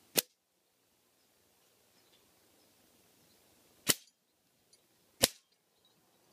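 Three sharp cracks from shots with a pre-charged pneumatic air rifle and the pellets striking a target. The first comes right at the start, the second about four seconds in, and the third about a second and a half after that.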